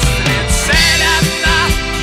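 Instrumental rock music: a bending lead melody over bass and a steady drum beat.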